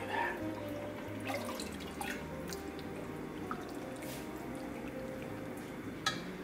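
Broth being ladled over sliced pork and noodles in a ramen bowl: liquid pouring, splashing and dripping in irregular splashes, with a sharp tap about six seconds in.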